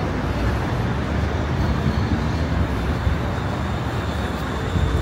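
Steady low rumble of a vehicle in motion, with a faint thin high tone above it.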